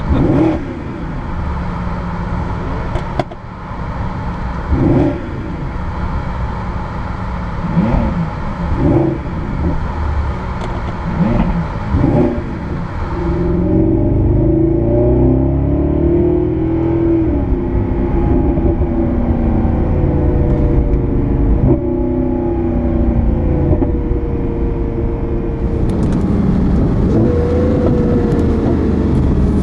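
Mercedes-Benz SLS AMG's 6.2-litre V8 heard from inside the cabin: a handful of short throttle blips while it waits, then from about halfway it accelerates away, its pitch rising and falling through the gears.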